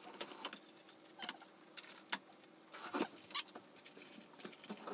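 Spatula scraping soft cream cheese out of its opened foil wrapper into a bowl: scattered small scrapes, crinkles and taps, the loudest about three seconds in.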